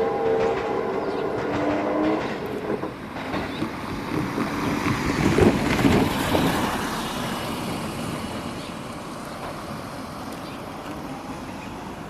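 A train running past with a steady tone that drops in pitch about two seconds in. It is loudest about halfway through, then fades as it moves away.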